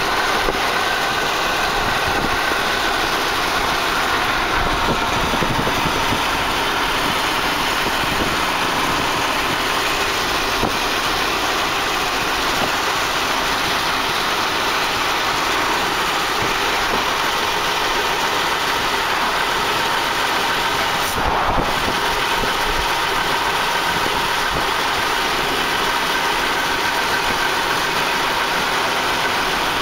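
Steady engine, tyre and wind noise of a car travelling at speed, heard from the moving car, with one brief knock about two-thirds of the way through.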